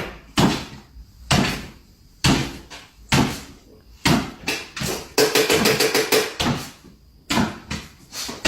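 A series of loud knocks or bangs, about one a second, with a quick rattle of rapid knocks in the middle.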